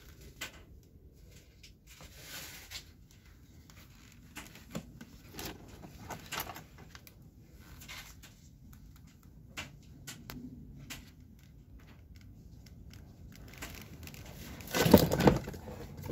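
A hard plastic DeWalt ToughSystem tool case being handled and opened: scattered clicks, knocks and rustles, then a louder clatter near the end as a cordless tool is lifted out of it.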